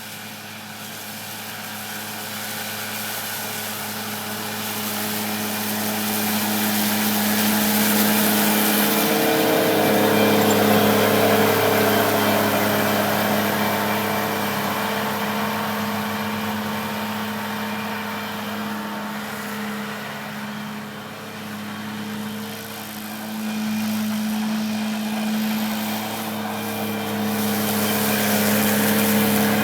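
Pasquali tractor's engine running steadily, growing louder over the first ten seconds, easing off about twenty seconds in, then louder again.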